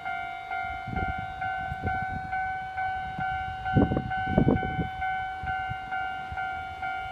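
Railway level-crossing warning bell ringing, an even repeating ding about twice a second, the signal that a train is approaching. A few brief low rumbles come and go, the loudest about four seconds in.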